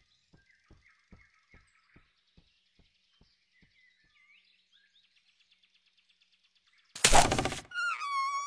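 Cartoon forest soundtrack: faint bird chirps and a slow run of soft ticks fade away. About seven seconds in a loud, short whack hits as the chinchilla is sent flying. It is followed near the end by a sliding whistle-like note as the violin score comes in.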